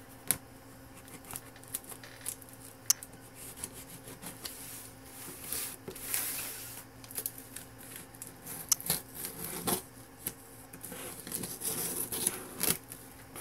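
Packing tape on a cardboard box being slit open with a blade: irregular scraping and ripping, with sharp clicks and taps of the blade on the cardboard.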